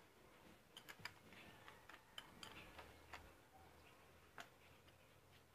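Near silence with a few faint, sharp clicks at irregular moments, like light handling of small hard objects.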